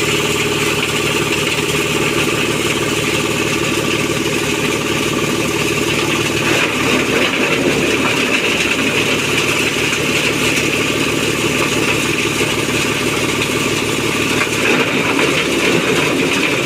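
Engine-driven SM30 chopper-grinder running steadily while grinding cassava stalks through a 5 mm screen, a loud, even machine hum mixed with grinding noise. The sound wavers briefly about seven seconds in and again near the end.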